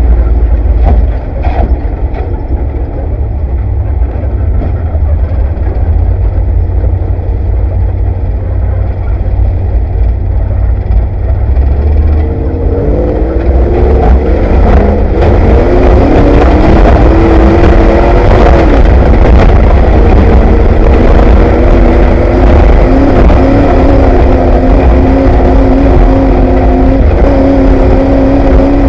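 Off-road race Bronco's engine heard from inside the cab: a heavy low rumble over rough noise at first. From about twelve seconds in, the engine note rises in pitch under acceleration, then holds a steady high pitch near the end.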